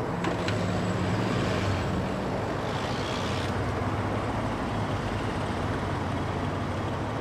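Road traffic: a steady low engine hum from vehicles, with a couple of clicks right at the start and a short hiss about three seconds in.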